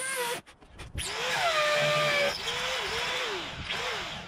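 Cordless drill boring into the concrete step with a masonry bit: a short run, a brief pause, then a longer run of about three seconds, the motor's pitch sagging and wavering as the bit bites.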